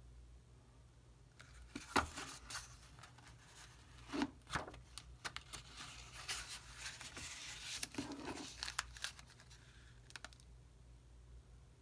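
Paper pages of an old booklet rustling and crinkling as they are handled and turned, with a few sharper paper snaps about two and four seconds in.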